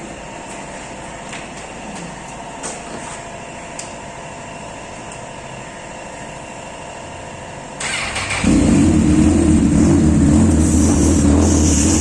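A Honda CB1000R's inline-four engine starts about eight seconds in and runs loud and steady through its stock exhaust, which has been cut open with an angle grinder to make it louder. Before that there is only a faint steady hum with a few light clicks.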